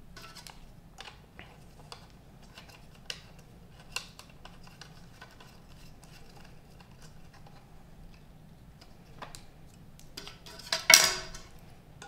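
Small clicks and light rattles of antennas being screwed by hand onto the threaded connectors of a Teltonika RUTX50 router, with a louder clatter near the end.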